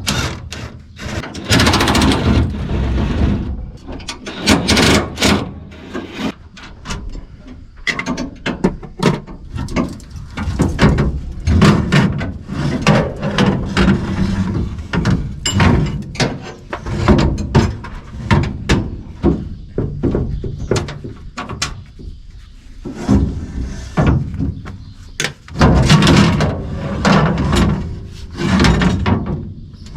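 Irregular metal clanks and knocks as steel separator grates are pried loose and pulled off a Case IH 2388 combine, with an occasional squeal of metal on metal.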